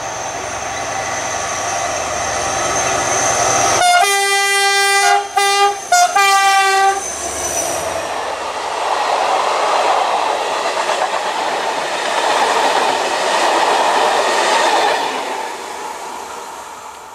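CC 72000-class diesel locomotive (CC 72084) approaching with its engine running. About four seconds in it sounds its horn: one long blast, a short one, then another longer one as it passes. Its train of old passenger coaches then rolls by with wheels clattering on the rails, fading near the end.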